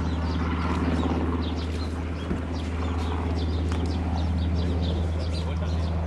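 Sikorsky VH-60N WhiteHawk twin-turbine helicopter in flight, a steady low rotor and engine sound.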